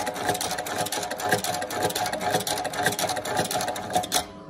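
CMCI M91 sole-stitching machine running at speed, its needle stitching the upper to a rubber shoe sole with a fast, even rattle of stitches, then stopping near the end.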